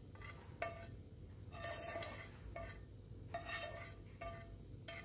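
Roasted semolina being spooned into a pan of boiling water: a metal spoon scrapes and knocks against a steel dish in about four or five short strokes, each with a light metallic ring.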